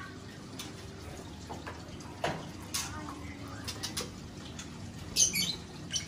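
Caged birds giving short, sharp chirps scattered through, the loudest a quick run of high chirps about five seconds in, with a few light knocks as a cloth cage cover is handled.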